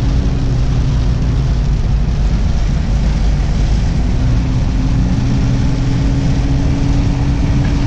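Vehicle engine and tyre noise on a wet road, heard from inside the cab while driving: a steady low hum over an even rushing noise.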